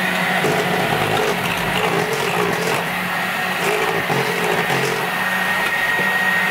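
Bosch electric hand mixer running steadily, its twin beaters whipping thick wet-meringue cream in a stainless steel saucepan as the cream is beaten down to cool. A steady motor hum, with a thin high whine that grows clearer near the end.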